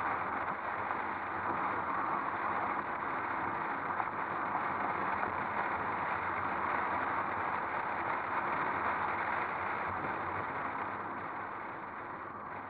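Steady rush of wind and tyre noise from a moving car, picked up by a camera mounted outside on the car's body. It eases slightly near the end.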